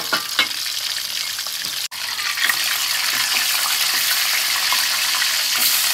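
Hot oil frying in a wok: chicken pieces deep-frying with a metal spatula clicking against the pan a few times at the start, then, after a brief dropout, sliced shallots sizzling steadily in the oil, a little louder.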